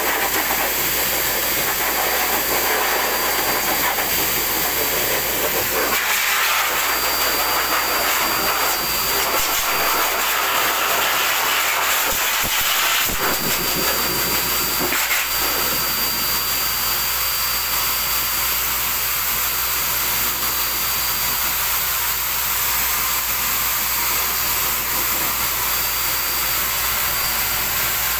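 Pet grooming dryer blowing steadily through its hose onto a wet dog, a loud even rush of air with a thin high whine on top.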